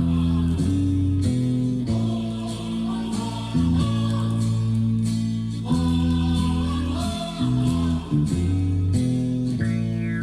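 Music played from a vinyl record on a Pioneer PL-X9 turntable: guitar-led music over held bass notes, playing steadily with no pauses.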